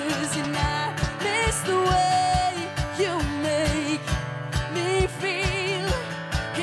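Live acoustic country music: a strummed acoustic guitar over a steady cajon beat, with a woman's voice singing long, wavering held notes without clear words.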